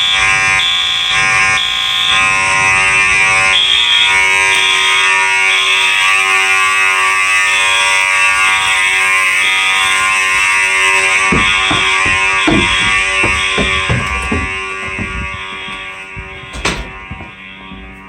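Two fire alarm horn strobes sounding at once. A Harrington Faraday 6226HS horn gives a harsh, angry-sounding steady buzz, and a Harrington-rebranded Wheelock AS electronic horn gives a high, ear-piercing tone that pulses in the code-3 temporal pattern of three beeps and a pause. In the last few seconds several knocks sound and the horns grow fainter.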